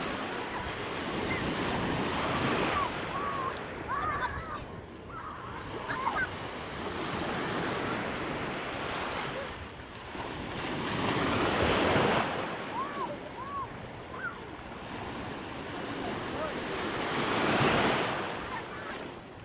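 Sea waves washing onto the shore in slow swells, loudest about 2, 12 and 18 seconds in, with wind buffeting the microphone. A few brief high-pitched voice calls sound over the surf.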